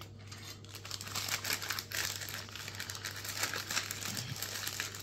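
Thin plastic bag crinkling and rustling as it is handled, a continuous run of small crackles.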